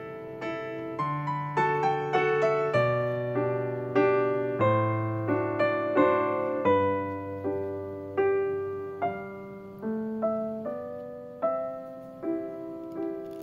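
Background piano music: a slow, gentle melody of single struck notes that ring and fade, over held lower notes.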